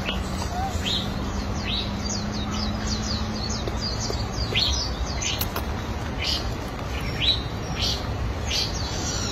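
Small birds chirping: many short, high calls that sweep downward, repeated irregularly, over a steady low outdoor background noise.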